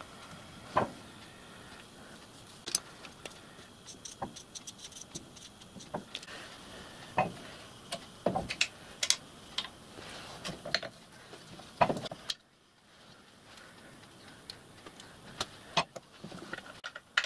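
Metal parts of a miniature steam locomotive's frame being handled and taken apart: irregular clinks, clicks and knocks of steel components, with a few louder clanks.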